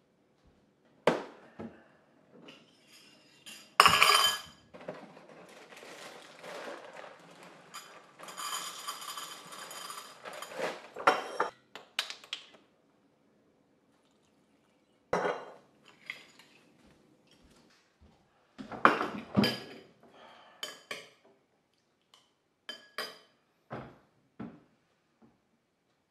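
Breakfast being made by hand: a cereal box handled, dry cereal poured into a ceramic bowl with a long rattling hiss, and a series of separate clinks and knocks of a spoon against the bowl and dishes.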